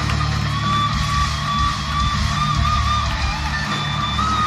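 Hard rock band playing live in an arena: a long, high sustained electric guitar lead note, bent and wavering with vibrato, over driving bass and drums, with crowd yells and cheers mixed in, heard from among the audience.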